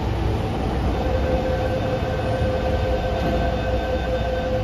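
Metro train standing at an underground platform, its steady rumble joined from about a second in by a steady door-closing warning tone as the doors shut.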